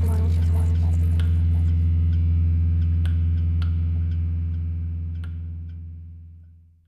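A steady low droning hum with a few sharp, scattered ticks, fading out over the last couple of seconds.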